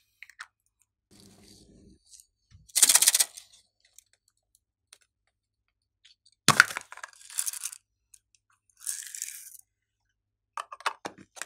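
Small plastic containers of glitter being handled and emptied: sharp plastic clicks and rattles, and short sprinkling hisses as the glitter is poured out, in several separate bursts with quiet between them.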